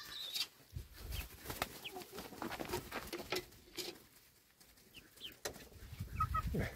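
Farmyard birds calling faintly: short chirps and clucks, with scattered clicks and knocks.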